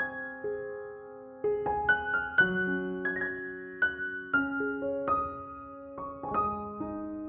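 Background music: a gentle piano melody of single struck notes ringing out and decaying.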